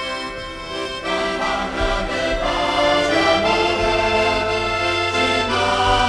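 Live traditional folk music with an accordion prominent, getting fuller about a second in.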